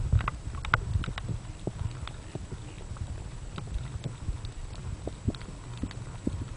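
Underwater sound picked up by a submerged camera: a low, muffled rumble of water with scattered, irregular clicks and pops.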